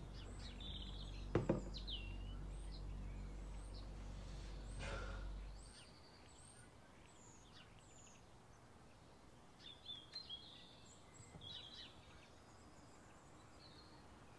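Faint chirping of small birds in the background, short high chirps scattered throughout, over a low steady hum. Two brief knocks come about one and a half and five seconds in, and the hum stops about six seconds in.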